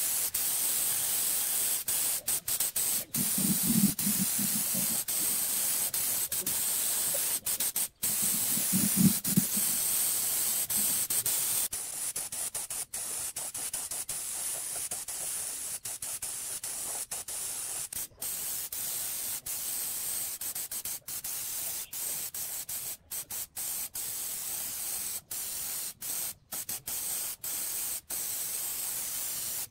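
Gravity-feed paint spray gun spraying: a steady, high hiss broken by many brief gaps where the spray stops and starts. Two short low rumbles come in the first ten seconds.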